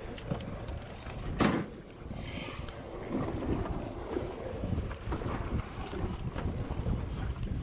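Wind buffeting the microphone aboard a small fishing boat at sea, a steady low rumble. A sharp knock comes about a second and a half in, followed by a brief high hiss.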